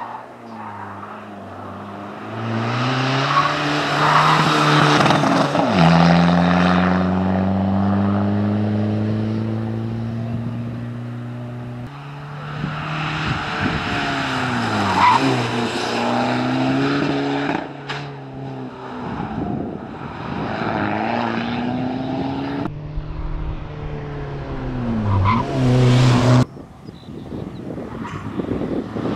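Audi A3 autoslalom car driven hard through a cone course, its engine revving up and dropping back again and again through gear changes and lifts between the cones, with tyre squeal on the tarmac.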